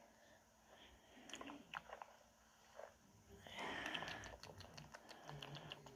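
Faint ASMR sounds played back from a screen: soft scattered clicks and crackles close to a microphone, with a brief rustling swell about three and a half seconds in.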